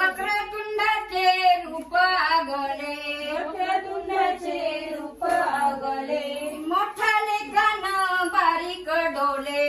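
Women singing a traditional Marathi pāḷaṇā (cradle song) in a continuous, melodic line.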